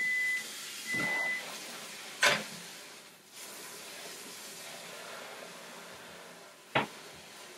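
Kitchen tap running steadily into the sink to fill it with dishwater, a steady hiss. Two short high beeps come near the start, and two sharp clanks sound, one a couple of seconds in and one near the end.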